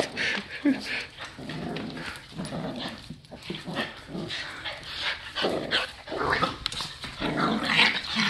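Two dogs, a Boston terrier puppy and a larger dog, play-fighting, making a string of short, irregular dog noises.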